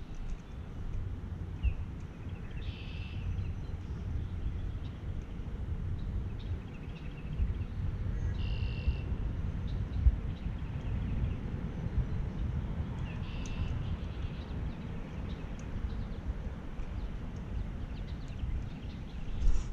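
Wind rumbling on the microphone, with a bird giving three short, high calls several seconds apart.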